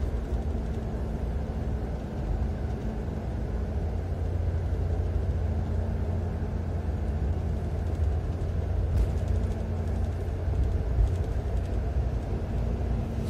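Steady low rumble of a coach bus on the move, heard from inside the passenger cabin: engine and road noise with a faint steady hum.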